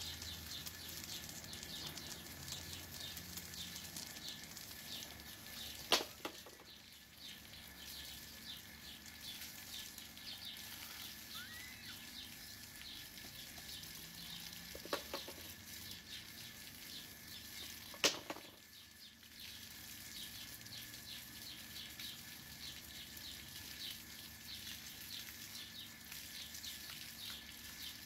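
Water spraying from a garden hose, a steady hiss with fine pattering as the stream hits a perched eagle's wet feathers and the concrete. Three sharp knocks break through, spaced several seconds apart.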